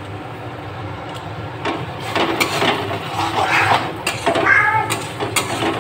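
A metal spatula scraping and clinking against a steel kadai as thick spiced onion masala is stirred and fried, with scattered knocks. A steady low hum runs underneath, and a few brief voice-like calls come through in the background.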